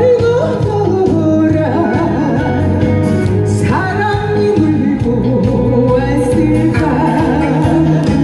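A singer singing an upbeat song live over musical accompaniment, the melody gliding and wavering over a steady low backing.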